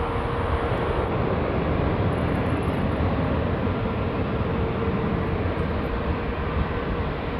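Jet airliner engines heard from the airfield edge: a steady, even rush of engine noise with a faint hum running through it.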